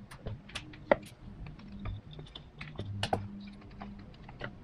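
Light, irregular clicks and taps of hands working a toothed rubber timing belt onto the cam sprockets of a Subaru EJ25 engine, with a sharper tap about a second in and another around three seconds.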